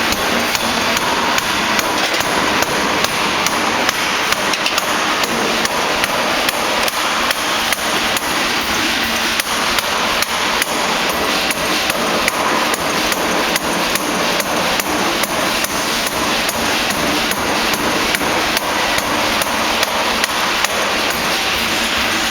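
Pneumatic forging air hammer striking repeatedly in a fast, even rhythm of about three blows a second, over a steady noise from the running machine.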